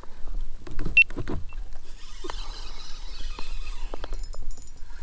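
Fishing reel being cranked to retrieve line.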